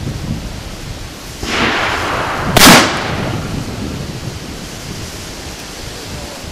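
A single shot from an original Colt 1860 percussion revolver in .44 calibre, firing a combustible paper cartridge loaded with black powder: one loud, sharp report a little over two and a half seconds in, after about a second of rushing noise.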